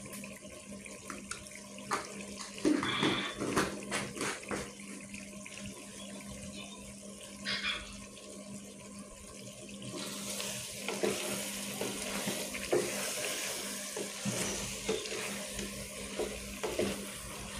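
Chicken curry cooking in an aluminium pot: scattered clicks and knocks of a wooden spatula, then about ten seconds in a steady sizzling hiss with crackle and wet stirring as the masala is mixed in.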